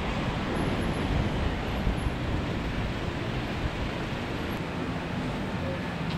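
Steady road traffic noise: vehicles running along a town street.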